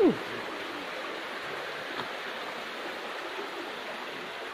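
Steady rush of running water from a small stream. Right at the start there is a short cry that slides sharply down in pitch, and a faint click comes about two seconds in.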